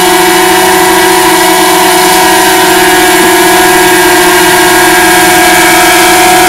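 DJI Mavic Mini quadcopter's propellers running with a loud, steady whine that holds one pitch.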